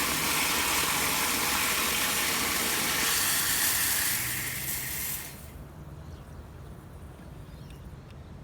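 Mains water under pressure hissing and spraying from a live pipe through a ball valve being fitted, cutting off sharply about five seconds in as the valve is turned off.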